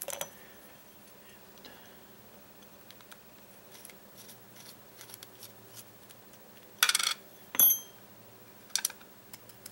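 Small metallic clicks and scrapes from a brass lock cylinder and its key being handled and turned. About seven seconds in comes a short rasp, then a sharp clink that rings briefly like small metal parts, and another short rasp near the end.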